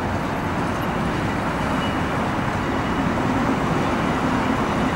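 Steady city traffic noise: a constant rumble of road traffic with a faint low hum.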